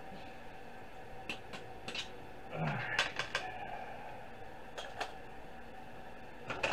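Light plastic clicks and a short scraping rattle, about three seconds in, as the body shell of a toy remote control car is worked loose and lifted off its chassis, over a steady background hum.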